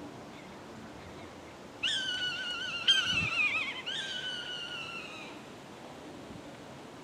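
Bird calling: three drawn-out, wavering notes that fall in pitch, with a sharp click just before the second.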